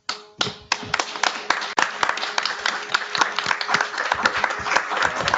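A room of people applauding: many hands clapping in a dense, steady patter that starts abruptly and keeps going.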